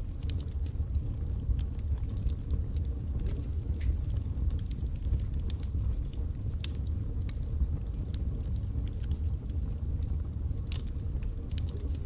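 Wood fire burning in a fireplace: a steady low rumble of flames with frequent, irregular sharp crackles and pops from the burning logs.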